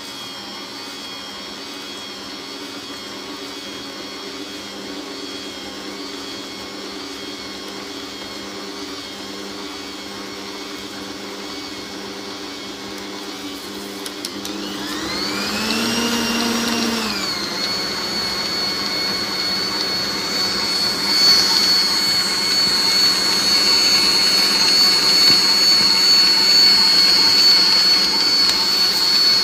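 Electric stand mixer motor running with a steady whine as its beater works stiff oat cookie dough in a steel bowl. About halfway through, the whine sweeps up and back down, then settles on a higher pitch and the sound gets louder as the speed is raised.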